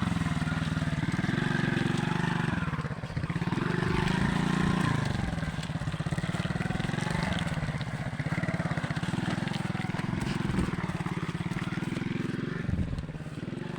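Alpha moped's single-cylinder four-stroke engine running under way on a rough track, its revs rising and falling again and again.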